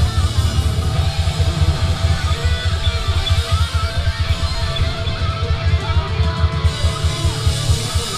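Live rock band playing loudly: electric guitars over bass guitar and drums, with a fast, steady pulse in the low end.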